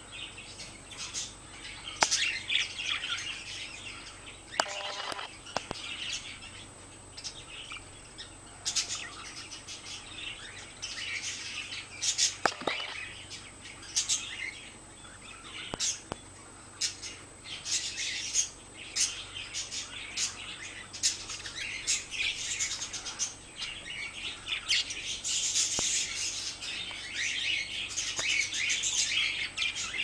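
Several budgerigars chirping and warbling, a steady stream of short high chirps that grows busier near the end, with a few sharp clicks among them.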